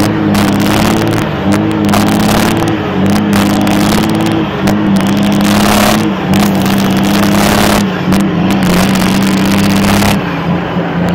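Big rig's Cummins Signature diesel engine running loudly, its note steady with small shifts in pitch.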